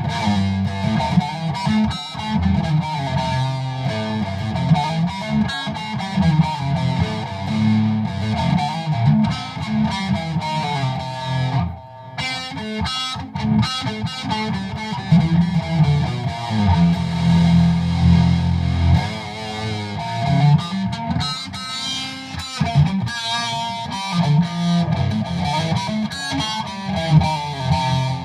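Guitar music with a distorted sound, played without pause apart from a brief drop about twelve seconds in.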